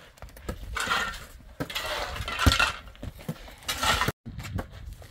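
A light ball being slapped back and forth by hand: a few sharp knocks, the strongest about two and a half seconds in. Between them come louder rushes of hissy noise. The sound drops out briefly just after four seconds.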